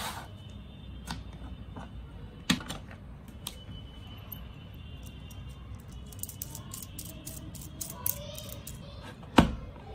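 Hands handling a red plastic hobby-knife blade case and a metal precision knife: scattered plastic clicks and taps, a sharper click about two and a half seconds in, a run of quick light ticks between about six and eight seconds, and a louder knock near the end.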